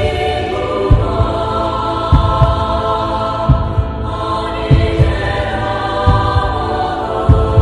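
Dark choral chant music: sustained voices held over a low heartbeat-like double thump that repeats about every second and a quarter.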